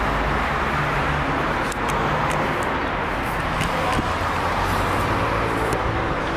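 Steady road traffic noise from cars on a street, with a continuous low hum underneath.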